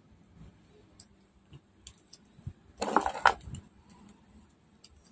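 Small metal hand tools clicking and scraping against a speaker's lithium battery pack as it is pried apart, with one louder rasping scrape about three seconds in.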